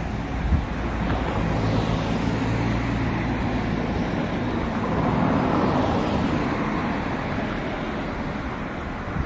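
Road traffic passing close by: a steady rush of tyres and engine hum that swells as a vehicle goes by about five or six seconds in.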